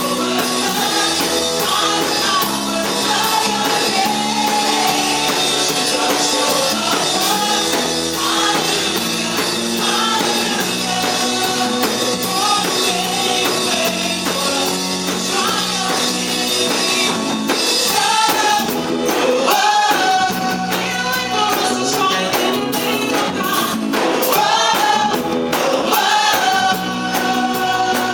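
Contemporary gospel worship music: singing over a band, with tambourine.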